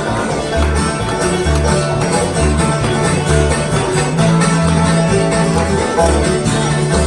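Bluegrass band playing an instrumental break without vocals: quick picked strings over a steady bass beat.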